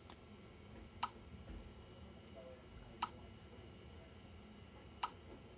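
Skyray EDX3 handheld XRF analyser giving three short click-like beeps, evenly one every two seconds, while it runs a measurement and counts down to the end of the test.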